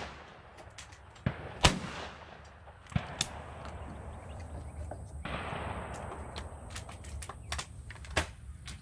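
A loud shotgun shot from an SKB over-and-under about one and a half seconds in, followed by several fainter sharp cracks.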